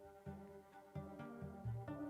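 Quiet background music: plucked low string notes, a few to a second, under sustained higher notes.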